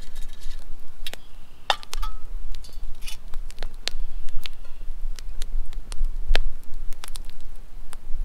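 Campfire crackling, with irregular sharp pops and snaps.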